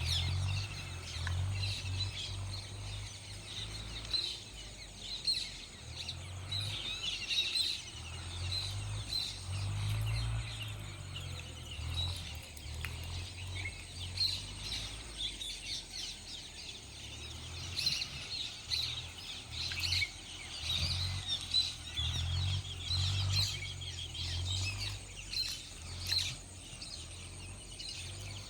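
Birds chirping and calling in short, scattered bursts, over an uneven low rumble that swells and fades and a steady thin high tone.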